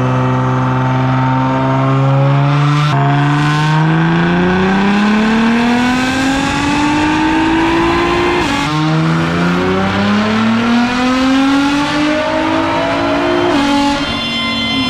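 Nissan GT-R R35's twin-turbo V6 on a chassis dyno during a full-throttle power pull. The engine holds steady for about three seconds, then climbs in pitch. The pitch drops sharply at a gear change about eight and a half seconds in, climbs again, and changes once more near the end.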